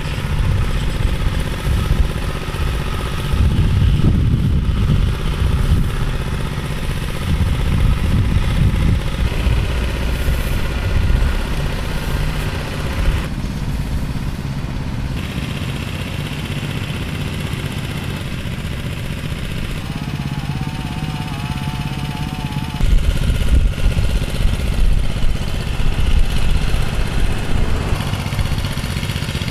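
Small gas engine of a power trowel running steadily while its blades smooth and polish fresh concrete, getting louder about two-thirds of the way through.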